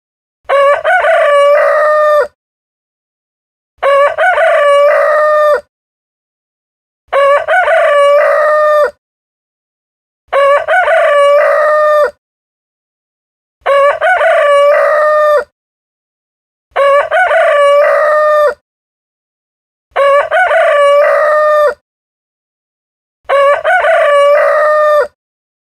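A rooster crowing cock-a-doodle-doo eight times, each crow lasting just under two seconds and coming about every three seconds, with dead silence between. The crows look identical, as if one recorded crow were repeated in a loop.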